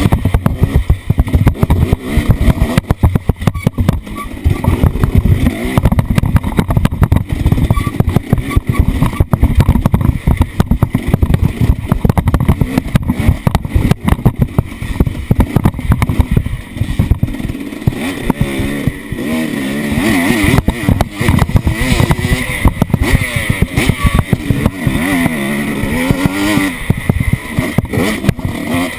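Off-road vehicle engine running and revving up and down, with the pitch rising and falling repeatedly in the second half, over constant choppy rumbling and buffeting.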